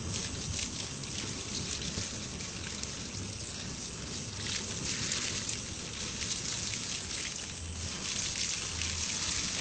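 Burning gas jet hissing steadily from the valve of an LPG gas cylinder, with water from a bucket poured and splashing over it, loudest around the middle. The water does not put the gas flame out.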